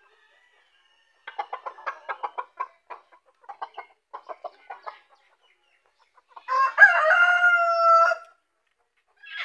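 Chickens clucking in a quick run of short calls for a few seconds, then a rooster crows once, about a second and a half long, which is the loudest sound.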